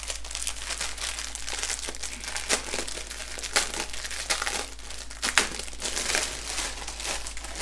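Small plastic bags of diamond-painting drills being picked up and handled, giving an irregular crinkling rustle with many sharp crackles.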